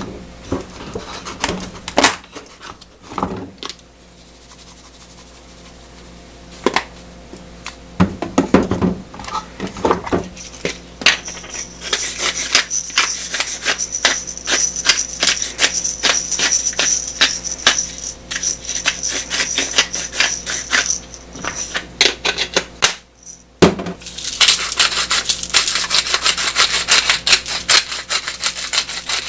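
Kitchen food-preparation sounds: a few scattered knocks and clinks, then a long run of rapid scraping strokes, and after a short pause a steady rubbing noise near the end.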